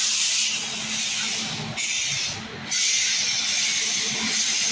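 Loud hissing of air around a train, in long stretches that break off abruptly a couple of times, over a low steady hum.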